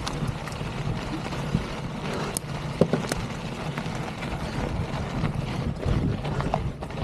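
Wind buffeting the microphone over a Polygon Siskiu mountain bike rolling across loose stony dirt, its tyres crunching, with scattered clicks and knocks from stones and the bike.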